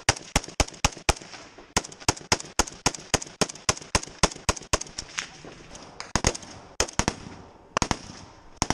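Small-arms gunfire: a steady string of sharp single shots, about three or four a second for the first five seconds, then after a short pause a few quick bursts of two or three shots each.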